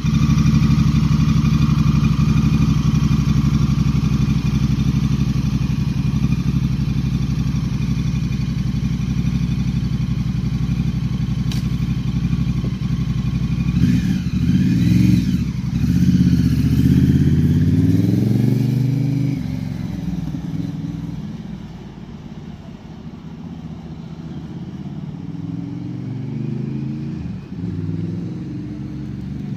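Honda Rebel 1100's parallel-twin engine idling steadily, then revving as the motorcycle pulls away about 14 seconds in, rising in pitch twice through the gears, and growing fainter as it rides off.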